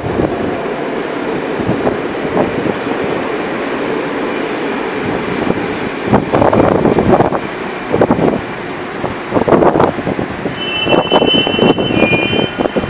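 Moscow Metro 81-717/714 train running out of an underground station, its wheels and motors rumbling on the track with louder surges as the cars pass. A thin, steady high whine sounds near the end as the train goes into the tunnel.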